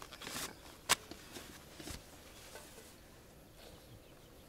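A short hiss just after the start, then one sharp click about a second in, over faint outdoor background with a few small ticks and rustles.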